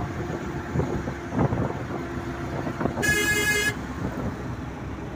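Steady road and engine noise heard from a moving vehicle's window, with one short vehicle horn toot about three seconds in.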